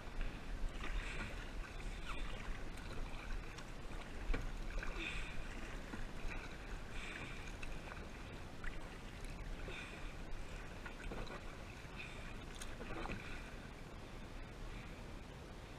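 Kayak paddle strokes: the blades dip and splash in the water in a loose rhythm, about one stroke every second or two, over a steady low rumble.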